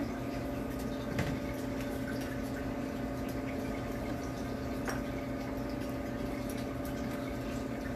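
Saltwater touch-tank filter running: a steady hum with water trickling and splashing back into the tank. A light tap about a second in.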